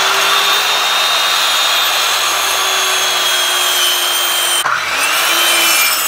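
DeWalt corded circular saw running and cutting through a timber girt, the blade whining steadily under load. A little past four and a half seconds in the whine drops briefly, then climbs back up.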